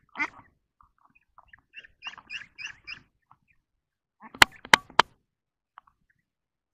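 Ducks quacking in a quick run of short calls, then three sharp knocks a little after four seconds in, the loudest sounds here.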